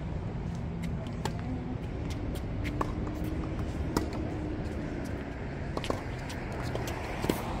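Tennis rally on a hard court: rackets striking the ball and the ball bouncing, a sharp pop every second or so, the loudest about four seconds in, over a steady low hum.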